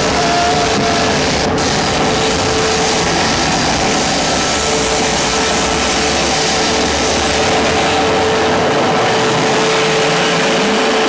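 Loud live club show recorded so close that the sound overloads into a steady wall of distorted noise, with one held high tone running through it.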